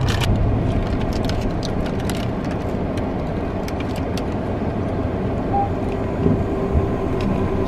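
Steady low rumble of a car's cabin, with the engine or ventilation running, and a few faint clicks.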